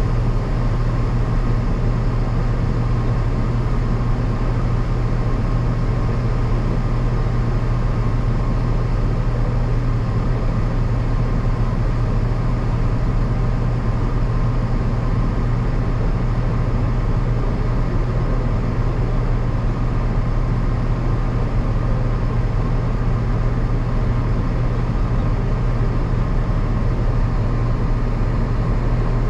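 Farm machine's diesel engine running at a steady speed, an even, unbroken drone with a strong low hum.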